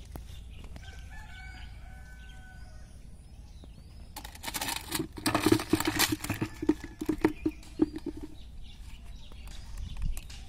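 Domestic fowl calling: a faint drawn-out call about a second in, then a loud stretch of rapid, harsh, repeated calls from about four to eight seconds in.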